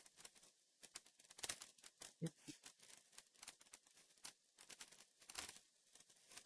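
Faint crinkling of a plastic minifigure bag and small scattered clicks of LEGO pieces being handled.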